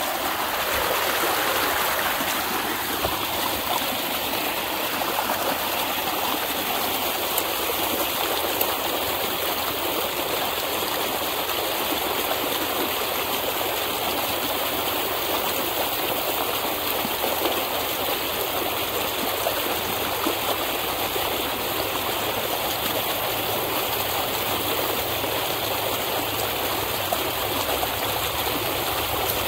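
Water gushing out of a corrugated plastic drain pipe in a steady rush: the drain running freely again after a beaver clog was cleared from it.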